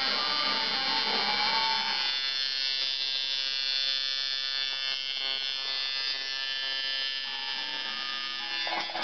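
Tattoo machine buzzing steadily while the needle works ink into the skin of a forearm.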